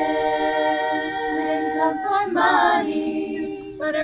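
High school a cappella choir singing: several voices hold a chord for about two seconds, then one voice carries a quick moving melodic line, and short rhythmic sung syllables come in near the end.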